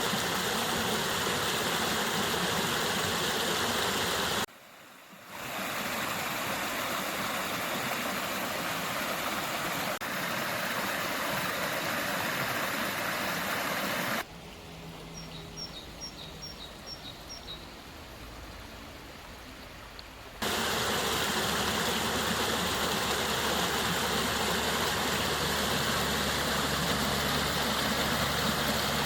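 Steady rushing water, like a stream or waterfall, broken by abrupt cuts between recordings. In a quieter stretch in the middle, a small bird gives six short high chirps in quick succession.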